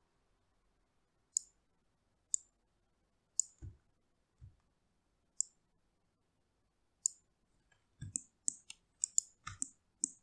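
Computer mouse clicking: single sharp clicks a second or two apart, then a quick flurry of clicks near the end, with a few soft low thumps in between.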